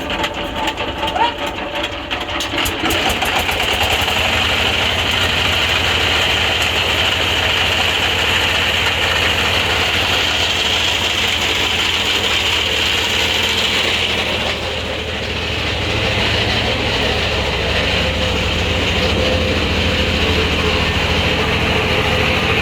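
Sawmill saw and its drive motor running with a loud, steady machine drone and a hissing upper band. The sound dips and changes briefly about fifteen seconds in.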